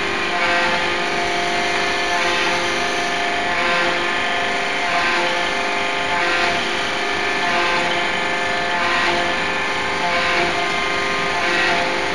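Open die forging hammer running with a steady machine hum made of several held tones, with a hissing swell rising and falling about every second and a half as the hammer cycles.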